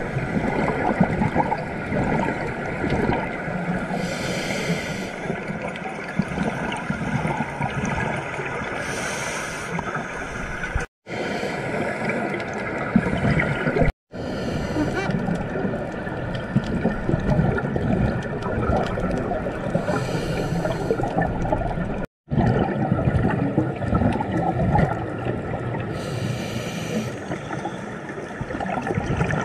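Underwater sound through a scuba diver's camera housing: a steady muffled rush of water, with regulator exhaust bubbles hissing out every few seconds. The sound cuts out briefly three times.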